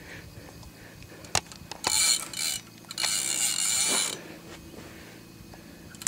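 Fishing reel's drag buzzing out in two bursts, a short one about two seconds in and a longer one about three seconds in, as a hooked goliath tigerfish pulls line against the bent rod.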